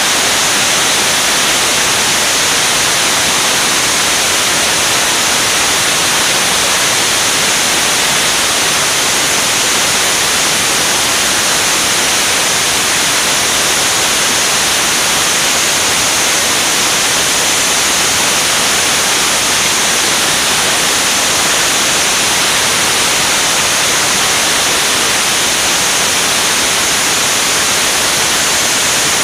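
Steady, loud rushing hiss of airflow over a camera mounted on a jet trainer's wing in flight.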